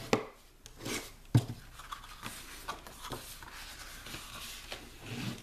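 A bone folder rubbing along score lines in cardstock while the sheet is creased and folded, in soft scraping strokes. There is a sharp tap just after the start and a louder one about a second and a half in.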